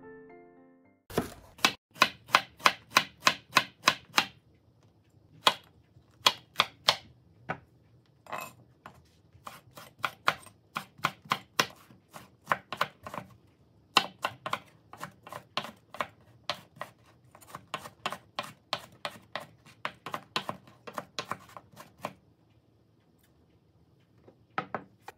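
Kitchen knife mincing a green onion on a wooden cutting board: sharp knife strikes in quick runs of about four to five a second, with short pauses between runs. The chopping stops a few seconds before the end, followed by a couple of last cuts.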